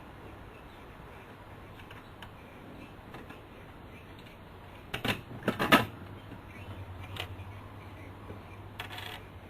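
A quick cluster of sharp clicks and taps about halfway through, then a couple of single clicks: small brass screws, nuts and washers being handled and fitted as an aircraft instrument is mounted into its panel.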